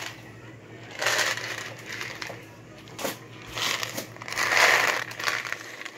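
Food packaging being handled: plastic and cardboard crinkling and rustling in several irregular bursts, the loudest near the end, with a sharp click about three seconds in.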